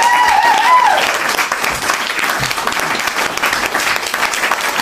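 Applause, a dense steady clatter of many hands clapping, with a high wavering tone rising and falling over it in the first second.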